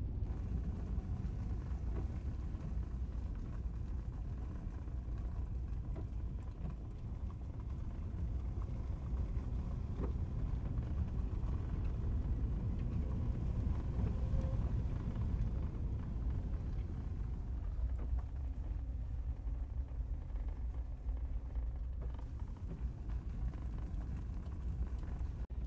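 Inside a moving car: a steady low rumble of engine and tyres on the road while driving.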